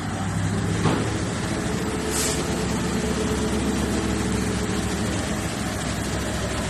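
Heavy truck engine idling steadily, with a brief click about a second in and a short hiss about two seconds in.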